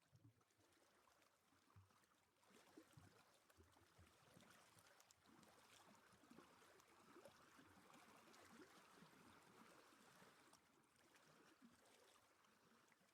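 Very faint flowing river water, a soft steady wash.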